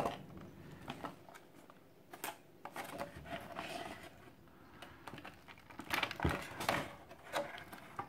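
Thin clear plastic blister packaging being handled and pulled apart, with irregular crackles and clicks, busiest about six to seven seconds in.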